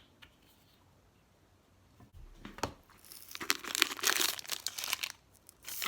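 Crinkling and rustling of craft materials handled by hand, with small clicks. It starts about two seconds in and becomes a busy stretch over the last three seconds.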